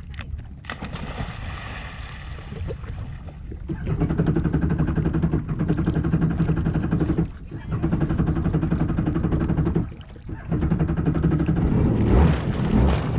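Jet ski engine running on the water, a steady pitched hum that gets much louder about four seconds in as it speeds up, easing off briefly twice.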